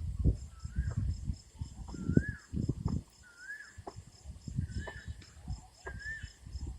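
A bird repeating a short call that rises and falls, about once every second and a quarter, over steady high insect chirping and an irregular low rumbling noise.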